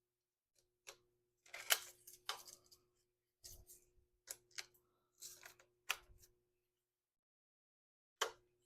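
Scattered faint clicks and clacks of the oscillating multi-tool being handled as a blade or bit is fitted into its opened clamp jaw, with about nine irregular sharp clicks and pauses between them.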